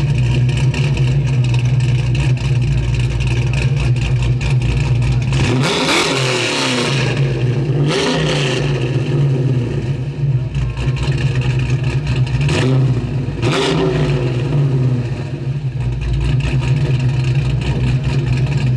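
Car engine idling steadily, blipped up in revs four times: about six and eight seconds in, and twice in quick succession around thirteen seconds.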